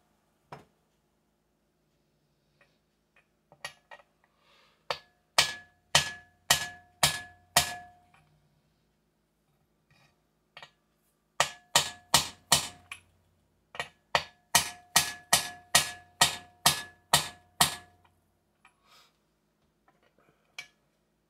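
Hammer tapping on the crankshaft of a Husqvarna 288 chainsaw to centre the crank, in three runs of taps about two a second with pauses between, each tap with a short metallic ring.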